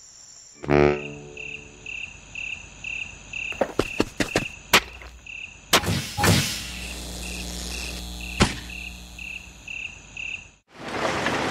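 Cartoon night-time crickets chirping, a short high chirp about twice a second, with several sharp clicks and knocks over them. Near the end the chirping stops and a loud, steady rushing noise starts abruptly.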